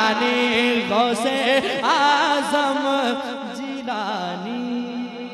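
Instrumental music with steady held notes under a wavering melody line, getting quieter near the end.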